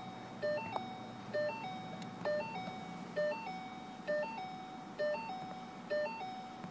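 Car's dashboard warning chime: a short two-note electronic chime that repeats evenly, a little faster than once a second.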